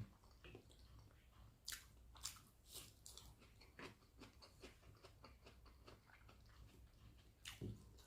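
A person chewing and eating rice with egg curry close to the microphone: irregular wet mouth clicks and smacks, with a few louder bites.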